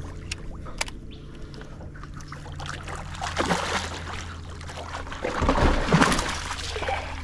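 Hooked barramundi thrashing and splashing at the surface beside a boat as it is played on a rod. There are two bursts of splashing, about three seconds in and, louder, about five and a half seconds in, over a steady low hum.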